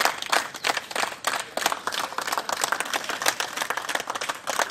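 A group of people applauding, many hand claps overlapping in a steady patter.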